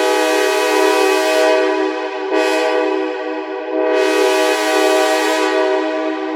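A Synth One app synthesizer imitating a 2nd-generation Nathan K5LA locomotive horn: a steady, multi-tone horn chord sounded three times. A long blast comes first, a short blast about two seconds in, and a third long blast a second and a half later that is still sounding at the end.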